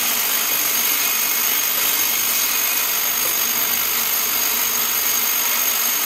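Vibratory bowl feeder running, a steady high-pitched hiss of small stamped steel compressor feet chattering against each other and the bowl as they are shaken round toward the outlet chute, with a faint steady high whine over it.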